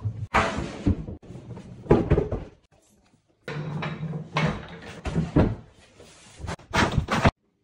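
Kitchen cabinet units being handled: knocks, bangs and scrapes of wooden cabinet parts and doors in several short bursts, cutting off abruptly near the end.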